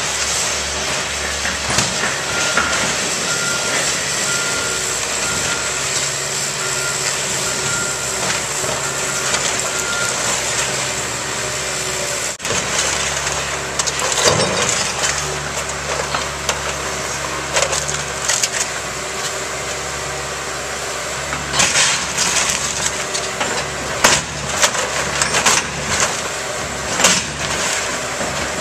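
Excavator's diesel engine running steadily, with a backup alarm beeping at an even pace for the first ten seconds or so. Later the bucket works the demolition pile, crunching broken wood framing and siding, with a run of sharp cracks and snaps near the end.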